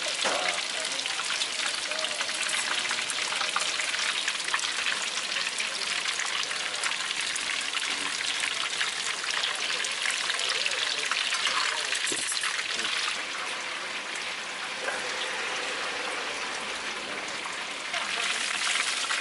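Battered rings and shrimp deep-frying in a pan of hot oil: a dense, steady crackle and sizzle. It eases a little about two-thirds of the way through, then grows louder again near the end.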